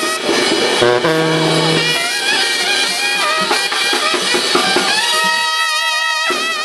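Live brass band playing, trumpets and a sousaphone over drums, with long held notes; a held chord breaks off near the end.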